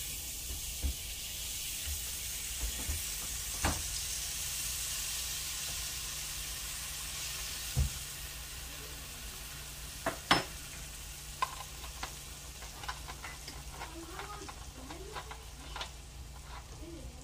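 Coca-Cola poured into a hot frying pan of browned flour and drippings, sizzling as it starts a Coca-Cola gravy. The sizzle is strongest in the first half and slowly dies down, with a few sharp clicks along the way.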